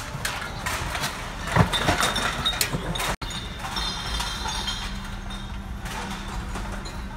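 Empty drink bottles and cans clinking and clattering as they are sorted and counted at a bottle-return counter. About three seconds in, the sound cuts abruptly to a steady low hum with scattered faint clinks.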